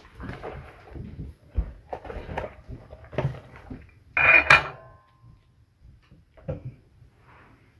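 Soldering-iron stand handled with rustling and small knocks, then set down on a wooden tabletop about four seconds in: a short clatter of its coiled metal spring holder, the loudest sound here, with a brief ring.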